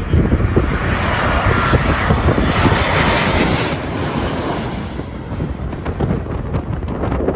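Jet airliner passing low overhead as it comes in to land, its engine rush swelling to a peak about three to four seconds in and then fading. Wind buffets the microphone throughout.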